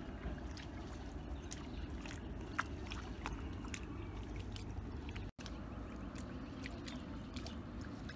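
Hands working through shallow muddy water: scattered small wet squelches and splashes over a steady low rumble of outdoor noise.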